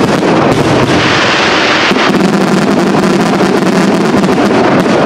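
Aerial fireworks shells bursting in a dense, unbroken barrage of loud bangs and crackles.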